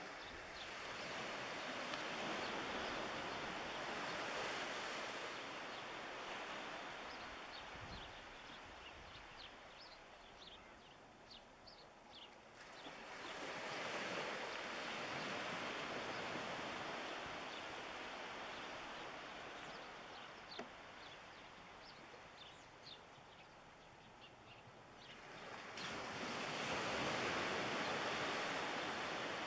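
Small waves washing up on the shore, swelling three times, about every twelve seconds, with a faint crackle of water draining back between the swells.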